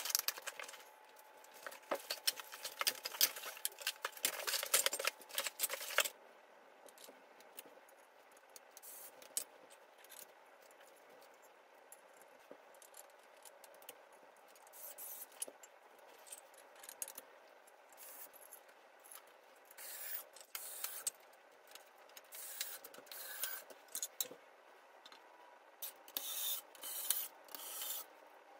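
Blade slicing packing tape on a cardboard box and the cardboard rustling and scraping as it is opened, followed by quieter scattered clicks and scrapes of metal frame parts and screws being handled, with more scraping and rustling near the end.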